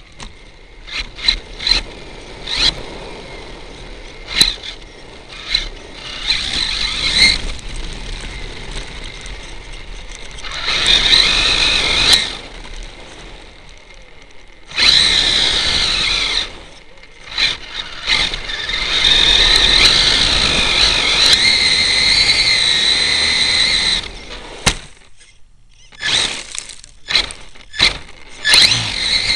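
HPI E-Firestorm Flux electric RC truck driven in bursts: its brushless motor and gears whine high under throttle, the longest run lasting about five seconds, with tyre noise on gravel and many sharp knocks as the chassis bounces over the ground.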